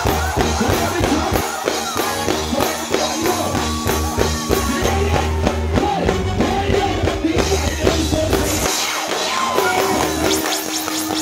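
Live band music with drums and a heavy bass line; the bass drops out near the end, leaving the drums and a singing voice.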